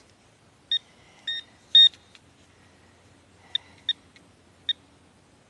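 Garrett Ace 400 metal detector giving six short, same-pitched beeps as its coil passes over a target, in two groups of three.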